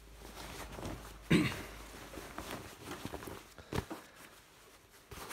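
An Army uniform jacket being handled on a wooden table: two sharp knocks, a loud one about a second in and another near four seconds, with light rustling and small clicks between them.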